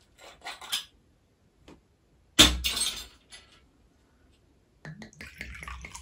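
A sharp glassy clink about two and a half seconds in, then soju glugging from a green glass bottle into a small drinking glass near the end.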